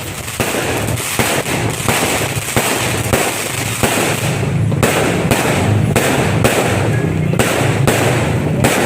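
Fireworks and firecrackers going off in a dense, rapid barrage of overlapping bangs and crackles, with sharper single cracks standing out in the second half.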